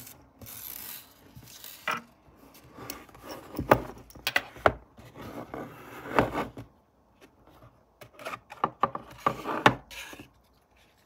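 Hands handling a plastic project box on a wooden tabletop: rubbing and scraping with scattered clicks and knocks as the box is turned over and its screwed-on lid panel is lifted off.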